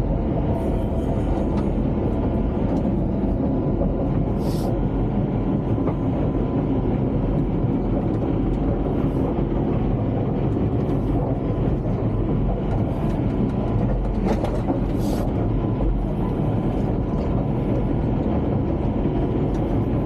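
Crawler bulldozer on the move, heard from inside the cab: the diesel engine runs steadily under the clatter of the tracks, with a few short clicks and knocks.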